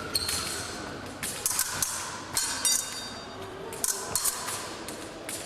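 Épée blades clashing: irregular sharp metallic clinks, several in quick runs, some ringing briefly.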